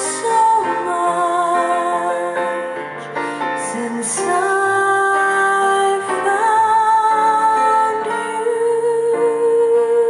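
A soft piano ballad playing through a Dayton Audio B652 Air bookshelf speaker, with a wordless female voice holding long notes over piano chords.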